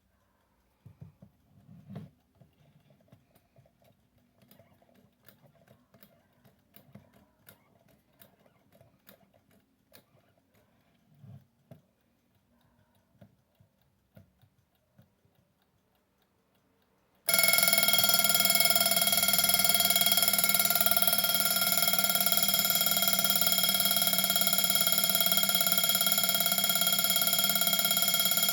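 Prim alarm clock ticking faintly, with a few soft knocks. About 17 seconds in, its alarm goes off suddenly and rings loudly and steadily.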